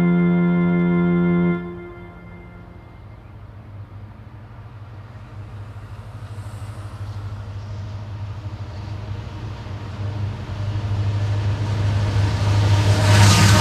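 A held musical chord cuts off about a second and a half in. Then a BNSF SD70MAC diesel locomotive leading a coal train approaches, its low engine drone growing steadily louder. Near the end it passes close, adding rumble and rail noise.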